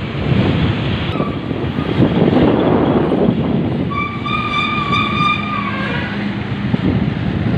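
Wind on the microphone and road rumble while riding a motorbike, with a vehicle horn sounding once for about two seconds about four seconds in, after a short beep about a second in.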